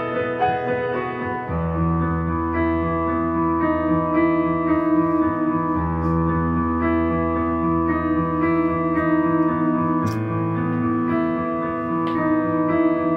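Background music: sustained keyboard chords over a steady bass line, changing chord every couple of seconds. Two faint clicks about two-thirds of the way through and near the end.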